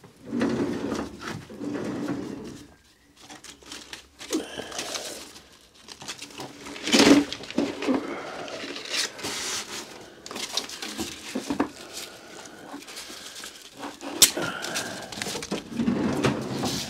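Irregular rummaging and handling noises as tools and metal parts are picked up and moved, with a couple of sharp knocks.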